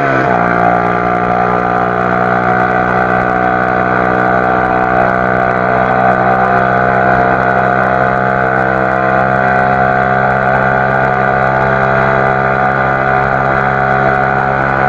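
Motorcycle engine through an aftermarket Sinaeng exhaust pipe, running loud and held at a steady high pitch on a test ride; the pitch drops right at the start, then stays constant.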